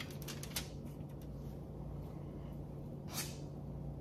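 Light clicks and taps near the start and one short scraping swish about three seconds in, from a spoon packing a soft cream cheese and sausage filling into halved jalapeno peppers, over a steady low hum.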